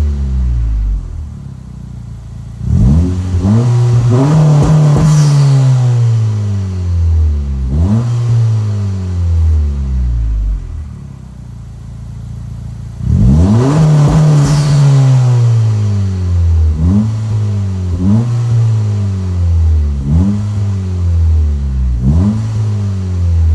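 2025 Honda Civic Si's turbocharged four-cylinder through a Megan Racing N1 cat-back exhaust, revving again and again. Each time the revs rise quickly and then fall away slowly; the two biggest rises end with a brief high whistle falling in pitch.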